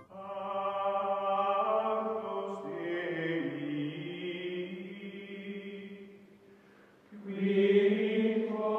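Music of sustained choir-like voices holding long chords. One chord fades away about six seconds in, and a louder one swells in about a second later.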